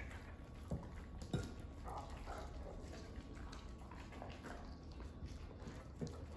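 Dutch Shepherd/Belgian Malinois dogs eating raw meat off a plate, quiet licking and chewing, with a few sharp clicks, two in the first second and a half and one near the end.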